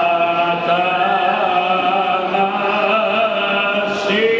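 Orthodox liturgical chanting: voices singing a slow melody in long held notes, moving to a new phrase about four seconds in.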